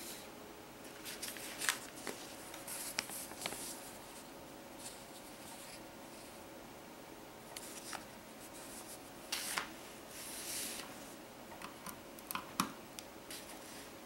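Handling noise: paper card rustling and small plastic and wire clicks as a hand-built circuit on a paper card is picked up, turned over and set down. The sounds come in scattered bursts, with the loudest rustles in the first few seconds and again about ten seconds in.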